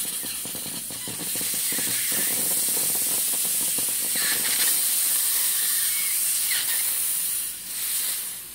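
High-pressure air hissing out as the compressor's fill line is bled down after the airgun cylinder reaches 200 bar. A loud, steady hiss with a faint whistle in it, dipping briefly near the end and then fading away.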